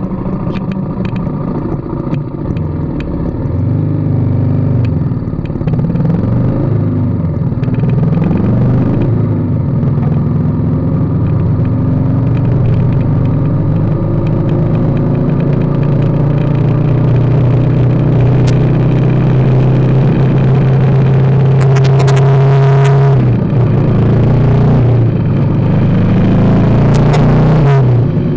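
BMW G310GS single-cylinder engine running under way on the move. Its revs rise and fall for the first several seconds, hold steady through the middle, then drop about three-quarters of the way in and again near the end. A few sharp ticks come in toward the end.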